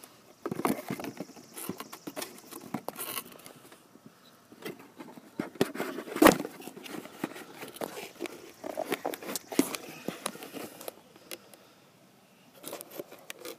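Close handling noise of small car parts: rustling, scraping and clicking, with one loud knock about six seconds in, as a new accelerator pedal position sensor is handled.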